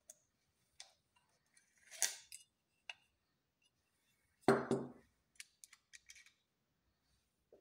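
Small metal clicks and a scrape as the back-and-bottom cover of a Zorki-4 rangefinder camera is unlatched and slid off the body, then a louder double knock about four and a half seconds in, followed by several light clicks as the open camera is handled.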